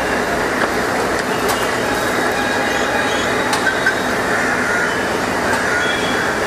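Steady, loud mechanical noise of heavy site machinery, with faint high whining tones and a few sharp clicks.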